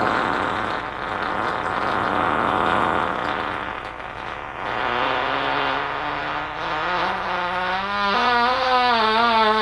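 A long, drawn-out fart, rough and noisy at first, turning in its last few seconds into a tone that wavers and slowly rises in pitch.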